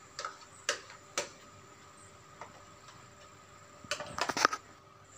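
Spoon clicking and scraping against a plastic bowl while juice is scraped out of it into a glass: a few separate clicks in the first second, then a quick run of clicks about four seconds in.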